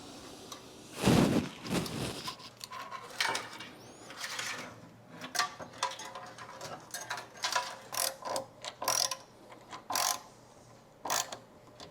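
Irregular clicks, taps and rattles of hardware being handled, with a louder knock about a second in.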